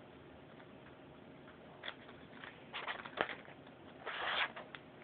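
Scattered light clicks and rustles, with a half-second rush of rustling about four seconds in, as a cat moves over a crumpled plastic bag beside a wire cage.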